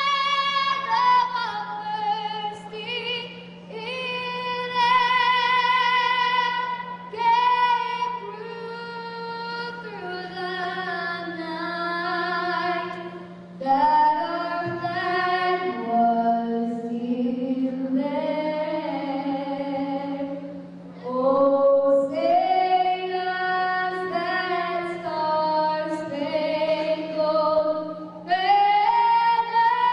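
A young girl singing the national anthem solo and unaccompanied into a handheld microphone, holding long notes with vibrato and stepping between phrases.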